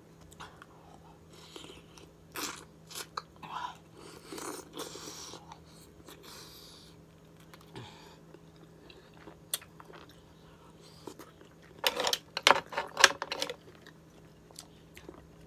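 Close-up eating sounds: chewing and biting on a sauce-covered green-lipped mussel, with scattered sharp clicks and a louder flurry of them about twelve seconds in. A faint steady low hum lies underneath.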